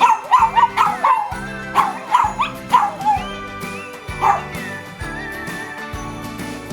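Dogs yapping over background music: a quick run of high yaps in the first three seconds, then one more about four seconds in.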